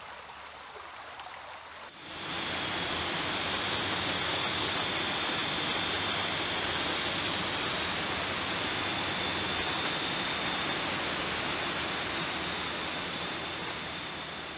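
Nighttime rainforest ambience: a steady, even hiss with thin, high insect calls held on top. It starts abruptly about two seconds in, after a faint quieter stretch, and fades toward the end.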